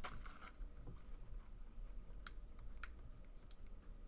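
Faint, sparse clicks and taps of trading cards being handled and flipped through, with two sharper clicks near the middle.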